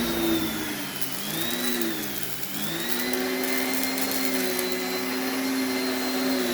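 Central vacuum running through a long hose and carpet head while vacuuming carpet, a steady whine over rushing air. Its pitch sags and recovers twice early on, then holds steady.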